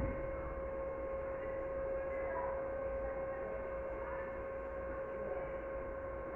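Steady electrical hum with one constant mid-pitched tone and fainter higher tones, low in level, once the music has cut off.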